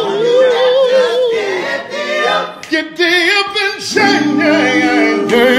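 Male vocal group singing gospel a cappella with no instruments. One voice holds a long note with vibrato, then after a short break near the middle several voices come in together in close harmony chords.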